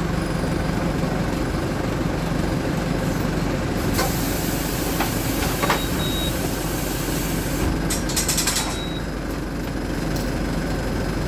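Mercedes-Benz OF-1722M bus engine running with a steady drone, with a sharp hiss about four seconds in and a short burst of rattling a little after eight seconds.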